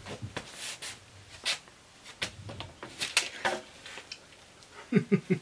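A man's short puffs of breath as he blows on a freshly burnt hand, then near the end a quick run of short pained vocal yelps.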